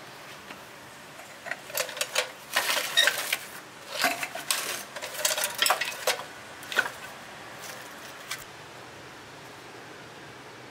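Rusty scrap metal clinking and clattering as pieces in a pile are shifted and picked through: a quick run of sharp metallic clinks and knocks, busiest in the first half, thinning out and stopping a little before the end.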